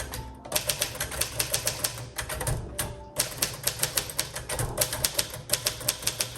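1939 Royal Aristocrat manual typewriter being typed on at a brisk pace, its keys striking in quick runs of clacks. The runs break off briefly about half a second in and again around two and three seconds in.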